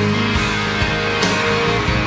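Rock power ballad, band playing without vocals: full backing with a steady beat about twice a second.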